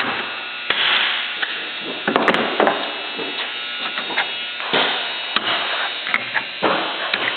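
A rivet being worked into a sample piece with a riveting tool: irregular sharp clicks and knocks over a steady hiss.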